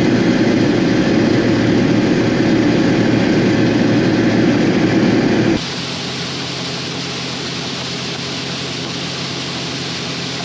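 Machinery engine running steadily, cutting suddenly a little past halfway to a quieter, steady engine sound.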